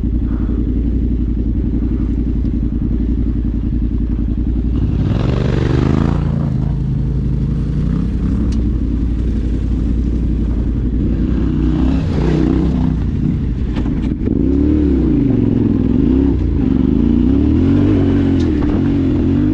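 Vehicle engine running on the move, a steady low drone whose pitch climbs about five seconds in and again around twelve seconds, then swings up and down repeatedly near the end.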